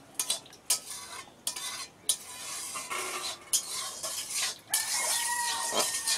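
Metal utensil scraping and clinking against a steel pot of fish curry, in short irregular strokes. About three-quarters of the way in, a steady drawn-out pitched sound comes in and runs on to the end.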